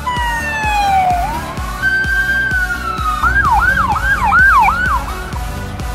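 Emergency vehicle's electronic siren: a slow wail falling then rising and holding, switching about three seconds in to a quicker up-and-down yelp of about two and a half cycles a second. Background music with a steady beat plays underneath.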